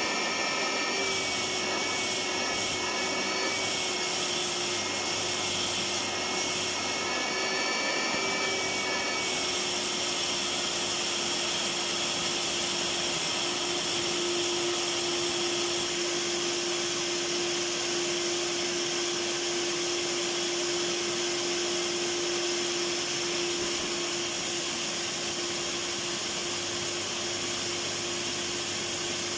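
Electric vacuum cleaner running continuously: a steady rush of air with a constant motor whine. A higher whine wavers slightly for about the first nine seconds, then settles.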